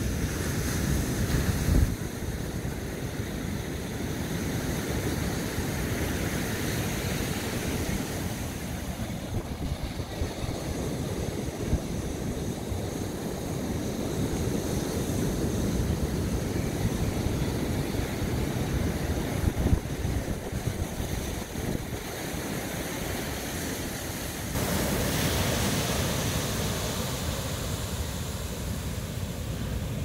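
Large ocean surf breaking and washing on the shore, a continuous rushing noise with wind buffeting the microphone. The sound drops abruptly about two seconds in and jumps up again near the end.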